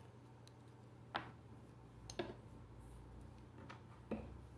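Three light clicks over a few seconds against a low room hum, from painting supplies being handled as white paint is taken up.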